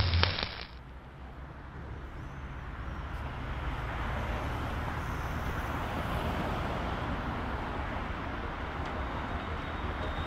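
Road traffic: cars passing close by, a steady wash of tyre and engine noise that swells slightly a few seconds in. A loud intro sound effect with a deep hum cuts off in the first second.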